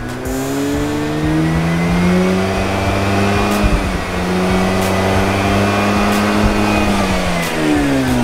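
Mazda RX-8's twin-rotor rotary engine, warm and stationary, revved up smoothly over about two seconds. It is held steady at high revs, about 6,500 rpm, for around five seconds, then falls away near the end.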